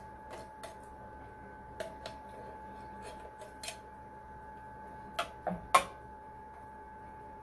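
A metal utensil clinking and scraping against a small saucepan as food is spooned out into a frying pan: scattered short clinks, several in quick succession with the loudest about three-quarters of the way through. A faint steady hum runs underneath.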